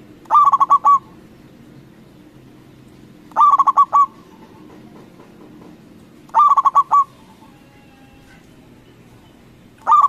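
Zebra dove (perkutut) singing: each phrase is a quick run of clipped cooing notes ending in a short held note, repeated about every three seconds, four times over.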